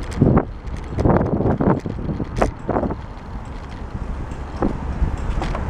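A bicycle riding over brick paving, with wind rumbling on the microphone and irregular knocks and rattles as the bike jolts over the bricks.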